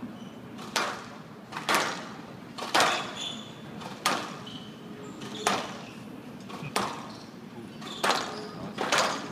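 Squash rally on a glass-walled court: the ball cracks off the rackets and walls about every second or so, eight sharp hits in all, each with a short echo.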